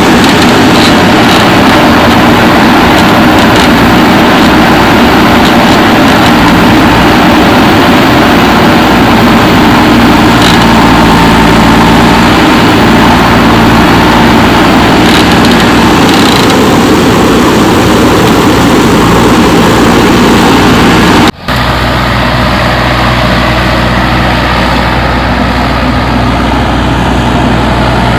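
Diesel engine of a JCB 3DX backhoe loader running steadily. About three quarters of the way through it drops out for a moment and comes back slightly quieter.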